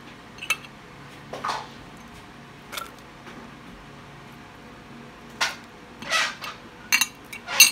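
Ingredients being put into a blender jar by hand: a series of short knocks, taps and rustles, coming more often and louder near the end.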